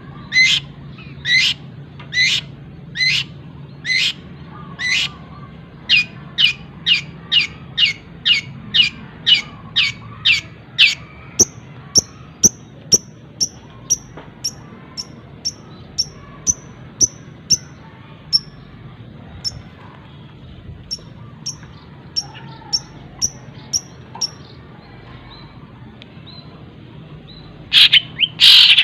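Long-tailed shrike (cendet) singing mimicry: a rapid series of loud descending notes copying a collared kingfisher (tengkek buto), quickening to about three a second, then a dozen seconds of short high chips copying a tree sparrow (greja). After a brief pause, loud harsh calls begin near the end.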